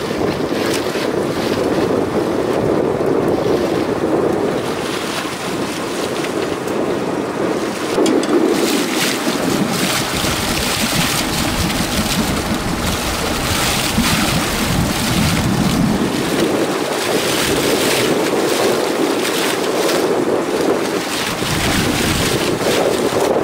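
Wind buffeting the microphone over the steady wash of sea against a small fishing boat's hull at sea, with a change in the noise about eight seconds in.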